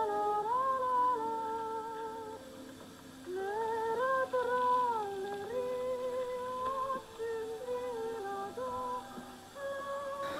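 A high voice humming a slow, wordless melody with vibrato, held notes and gliding pitch. It comes in two phrases, with a short break about three seconds in.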